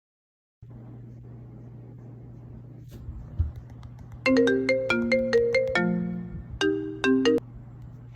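A mobile phone ringtone plays: a quick run of bright, melodic notes about four seconds in, then a shorter phrase of a few notes. A low thump comes shortly before, and a steady low hum runs underneath.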